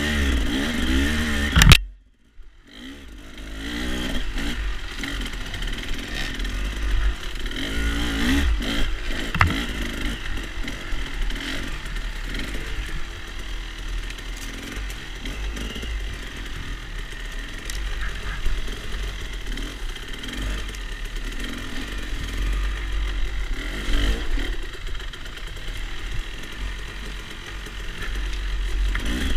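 Off-road dirt bike engines running at low trail speed, the engine note rising and falling as the throttle is worked. There is a sharp knock just under two seconds in, after which the sound drops out for about a second.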